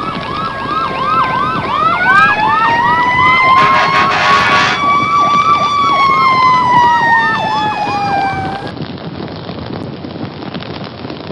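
Emergency-vehicle sirens: a fast yelp cycling about three times a second, overlapped by a wail that rises, holds and slowly falls, with a brief horn blast about three and a half seconds in. The sirens stop abruptly after about nine seconds, leaving a steady hiss.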